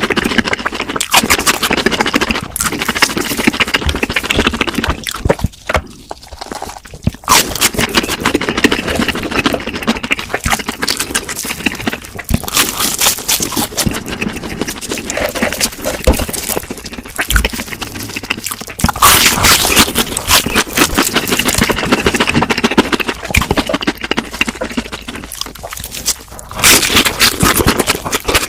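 Close-miked eating sounds: crunching and chewing of crispy fried food, a dense run of irregular crackles that grows louder in places.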